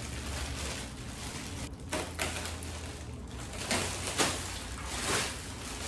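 Clear plastic wrapping crinkling and rustling in irregular scrunches as it is pulled and bunched off a new mesh office chair's backrest.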